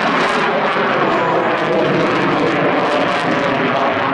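F-16 fighter jet's engine, a loud steady roar as the jet climbs nose-up overhead.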